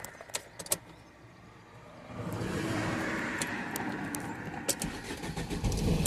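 A few sharp clicks, then about two seconds in a Fiat 1.3 Multijet diesel engine starts and keeps running steadily. It starts now that its immobilizer has been switched off in the ECU.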